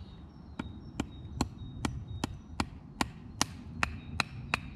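A wooden baton tapping repeatedly on the spine of a knife, about two to three sharp knocks a second, driving the blade down into the end of a stick to split it.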